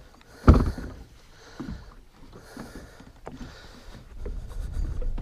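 Water sloshing and lapping around a small fishing boat, with a sudden loud thump about half a second in and a few smaller irregular sounds after it.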